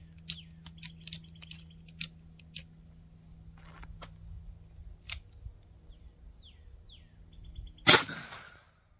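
Metallic clicks of a single-action revolver being handled and loaded, then one loud .45 Colt pistol shot near the end with a short echo, a Barnes Vor-TX load fired over a chronograph.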